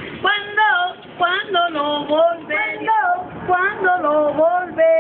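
An elderly woman singing a plaintive melody unaccompanied, holding and bending long notes.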